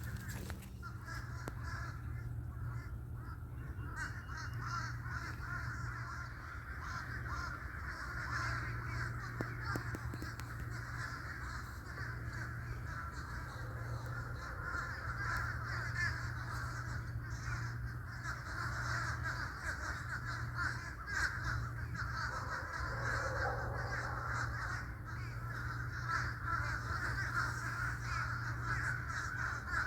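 A group of crows cawing, many calls overlapping in a near-continuous chatter.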